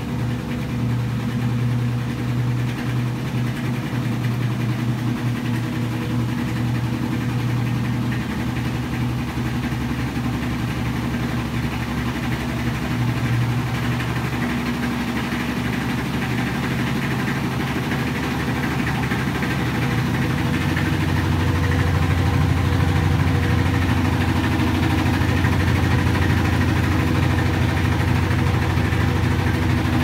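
Mabe top-load washing machine running, a steady motor hum with a few low tones. About twenty seconds in the hum drops slightly in pitch and gets a little louder.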